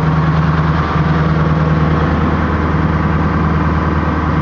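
Fishing boat's engine running steadily under way, holding a constant low pitch.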